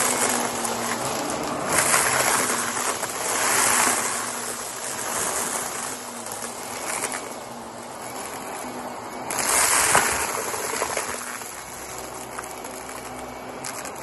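Upright vacuum cleaner running with a steady motor drone while it sucks up a pile of shredded plastic and small toys from carpet. The debris crunches and crackles through it in several louder surges.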